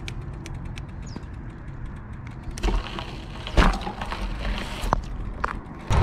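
Bicycle riding on a paved path: a low wind and tyre rumble with scattered light clicks and rattles, and a sharper knock about three and a half seconds in.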